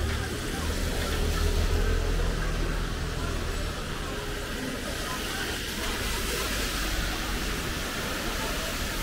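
Rainy street ambience: a steady hiss of rain and tyres on wet road, with a passing vehicle's low rumble that eases off about four seconds in.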